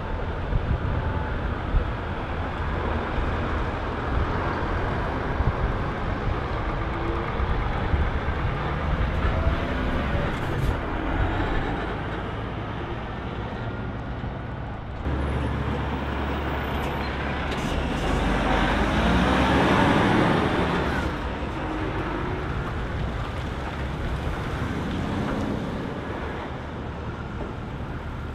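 Heavy diesel trucks driving past at low speed, engines running with tyre and road noise. The loudest pass swells up and fades away about twenty seconds in.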